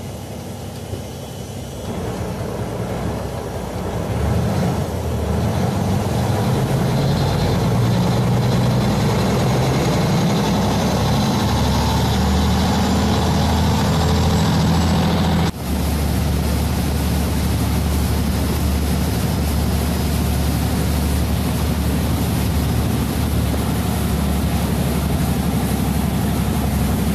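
Canal passenger boat's big engine running loudly, building up about two to four seconds in as the boat pulls away from the pier, then holding a steady, heavy rumble under way.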